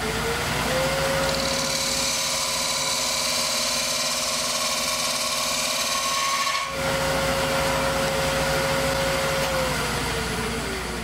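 Wood lathe running with a hollowing tool cutting inside a spinning oak blank: a steady motor hum under a hissing scrape from the cut through the first half or so. Near the end the lathe winds down, its hum falling in pitch.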